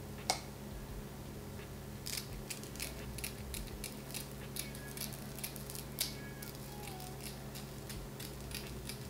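Small scissors snipping the excess lace off a lace front wig along the hairline: a string of short, quiet snips, several a second, over a steady low hum.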